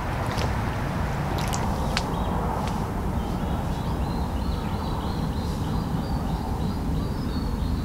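Outdoor ambience: a steady low rumble, a few sharp clicks in the first three seconds, and a faint high chirping that starts about three seconds in.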